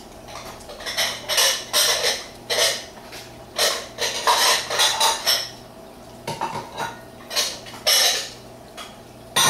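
Crumpled aluminium foil crinkling and rustling in about a dozen irregular short bursts as a burger is handled and eaten over it.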